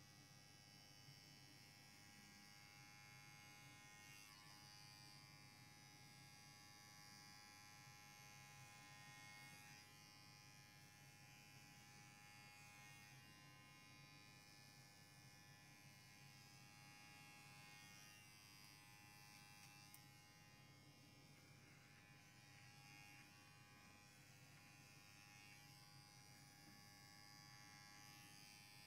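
Faint steady buzz of small electric hair clippers running as they trim a Persian cat's long fur.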